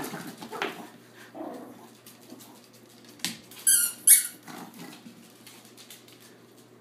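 Small Yorkshire terriers playing with a ball on a hard floor: a sharp knock a little past three seconds in, then two short, high squeaks close together.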